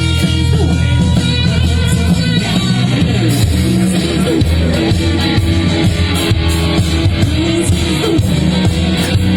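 Blues-rock song with electric guitar over a steady, heavy bass line, played loud through a JBL line-array PA system at a sound check.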